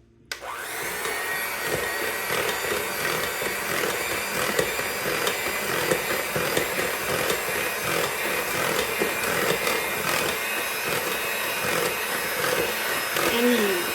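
Electric hand mixer whisking pumpkin puree, peanut butter and eggs in a bowl: switched on abruptly just after the start, then a steady motor whine with the beaters churning the mixture.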